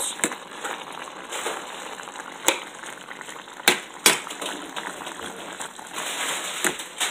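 A slotted metal spatula scraping and stirring ground beef in a stainless steel pot, with several sharp clacks as the spatula strikes the pot's side, the loudest a few seconds in.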